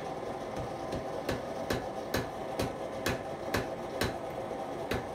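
Hand hammer striking hot steel on an anvil in a steady rhythm, about two blows a second, over the steady running of a forced-air propane forge burner and blower.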